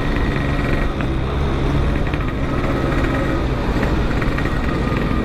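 A 135cc motorcycle engine running at a steady pitch while being ridden, with road and wind rumble on the microphone.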